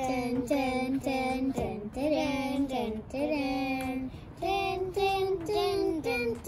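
A child's voice singing a simple wordless tune in a string of held notes, each about half a second to a second long.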